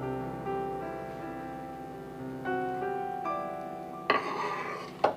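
Background piano music with sustained notes changing every second or so. About four seconds in, a short burst of noise cuts across it for nearly a second, followed by two brief bursts near the end.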